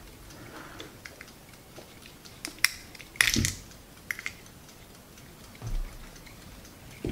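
Small clicks and rattles of a transistor radio's circuit board and its wires being handled and turned over on a workbench, with a louder clatter about three seconds in and a soft thump near the end.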